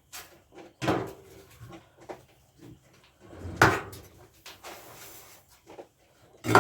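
Knocks, clatter and rustling from handling a feed container and its lid while feeding quail, with a louder rustle about halfway through and a sharp knock near the end.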